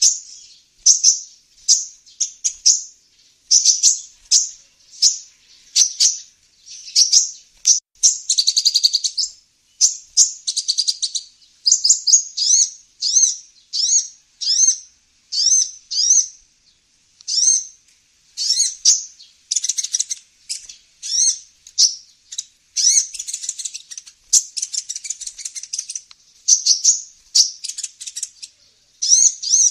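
Kolibri ninja sunbird call played as a bird-trapping lure: high, sharp chirps repeated about once a second, some slurring downward, with a few quicker buzzy trills mixed in.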